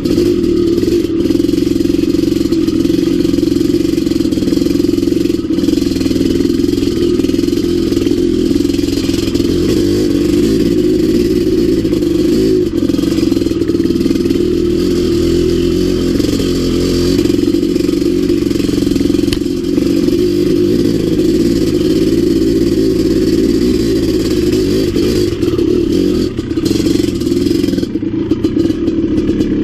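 Maico 700's big single-cylinder two-stroke engine running steadily under light throttle as the dirt bike rides a rough trail, with scattered knocks and scrapes from the bike and brush.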